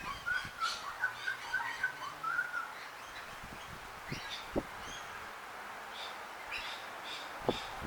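Small birds chirping in short, repeated high calls, with a quick run of lower notes in the first two and a half seconds and a few faint clicks later on.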